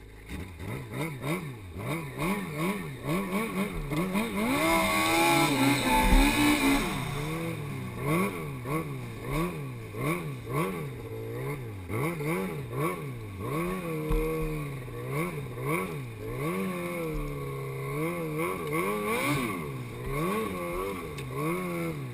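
Yamaha Apex snowmobile's four-stroke engine revving up and down over and over as it rides, its pitch rising and falling about once a second, with a louder, higher rev about four to seven seconds in.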